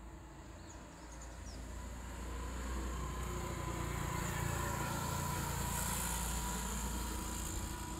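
A motor vehicle passing by with a low engine rumble and road hiss. It grows louder over the first few seconds, is loudest around the middle, and eases off a little near the end.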